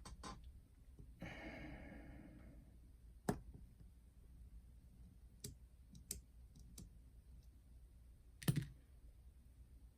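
Scattered light clicks and knocks of small plastic parts and a tool being handled while a cassette deck is taken apart, the loudest near the end. About a second in comes a soft rasping sound lasting about a second and a half.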